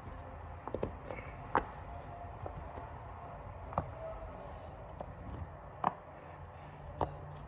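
Bubbles of a silicone pop-it fidget toy being pressed in: a handful of sharp single pops, spaced irregularly a second or two apart.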